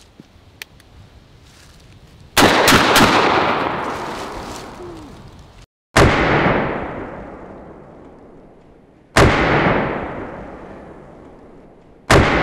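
Panzer Arms M4 12-gauge semi-automatic shotgun firing 00 buckshot: four loud blasts about three seconds apart, each fading out in a long echo.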